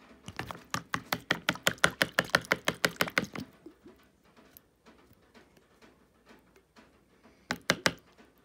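Hands working a plastic gold pan and a squeeze bottle on a wooden table: a quick run of clicking taps, about seven a second, for some three seconds, then scattered faint ticks and a short burst of clicks near the end.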